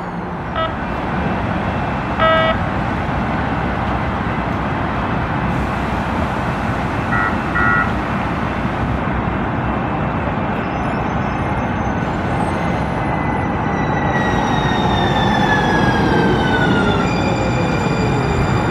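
Siemens S70 light rail train running into a station and braking to a stop, its electric propulsion whine falling slowly in pitch and then holding steady once the train stands. Steady rumble and rail noise underneath, with a few short beeps, two of them close together, in the first half.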